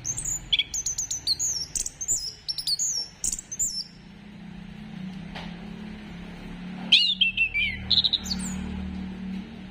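Orange-headed thrush (anis kembang) singing a fast run of high whistled notes and slurred falling phrases for about four seconds, then another descending phrase and a few short notes about seven seconds in. A steady low hum sets in about four seconds in.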